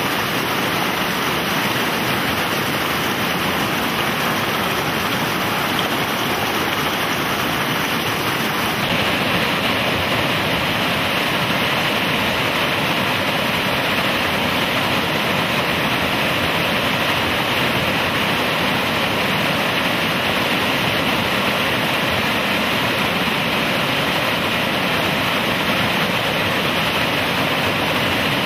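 Fast river rapids rushing steadily. The rush grows a little louder and brighter about nine seconds in.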